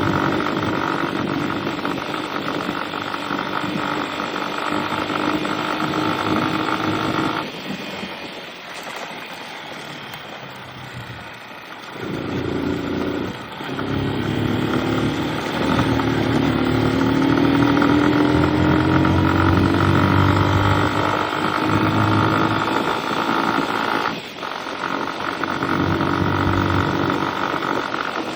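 A motor vehicle's engine running steadily with a droning hum. It eases off about a quarter of the way in and picks up again, its pitch slowly rising as it gathers speed.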